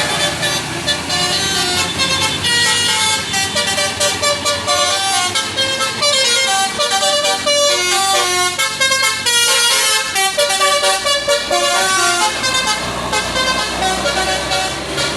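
A bus's 'telolet basuri' musical air horn playing a quick tune of short, stepped notes.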